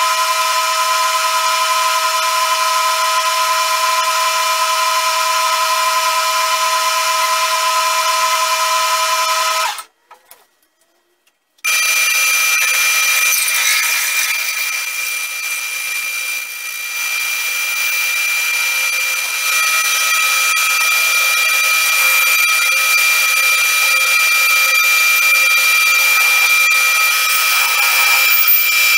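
Multitech 800 (CQ9332A) metal lathe running while cutting aluminium, a steady whine made of several tones. About ten seconds in the sound cuts out for nearly two seconds, then the lathe runs on with a different, higher whine while a twist drill drills into the spinning aluminium part and later a boring bar cuts inside it.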